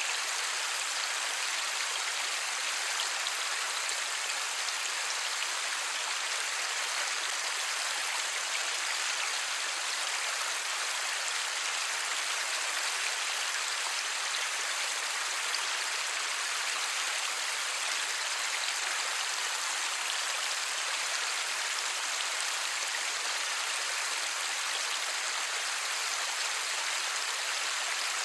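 Light rain falling, a steady even hiss with no thunder.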